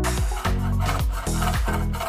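Electronic background music with a steady beat, over the rasping strokes of a fine-bladed hand saw starting a cut into a PVC pipe elbow from about half a second in.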